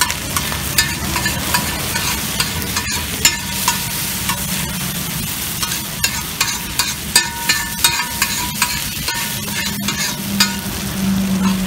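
Oil sizzling on a large flat griddle while a flat spatula scrapes and taps against the metal, stirring and chopping pieces of food. The many sharp taps ring briefly over a steady hiss.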